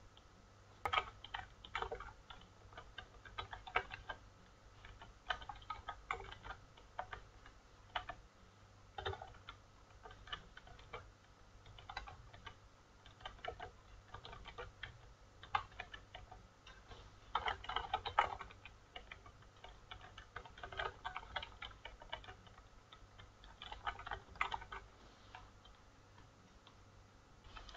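Quiet typing on a computer keyboard: short runs of key clicks with pauses between them as text is entered into form fields.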